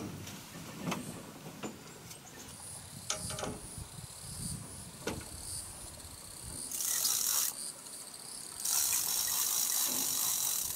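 Insects shrilling in a high, steady buzz that swells loudly about two-thirds of the way in and stays loud, with a few light knocks and taps in the first half.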